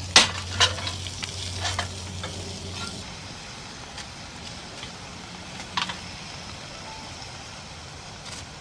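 Trout frying in oil in a pan, a steady sizzle that quietens about three seconds in. A spatula knocks against the pan a few times, sharpest near the start.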